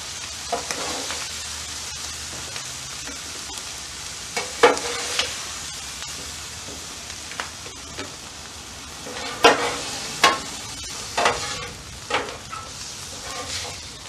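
Food sizzling steadily on a flat-top griddle, with a metal spatula scraping and clinking against the steel cooktop: a few sharp clinks about five seconds in, then a cluster of them in the second half, as grilled cherry tomatoes are lifted off.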